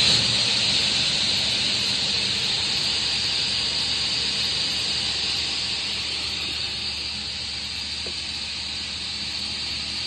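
Guilliet sliding table saw running at full speed with a steady high whine, just after spinning up.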